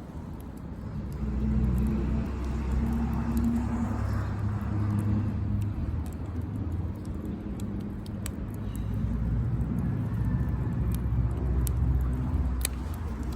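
Low rumble of a motor vehicle that swells twice, like cars passing close by, over the scattered sharp crackles of a small wood fire.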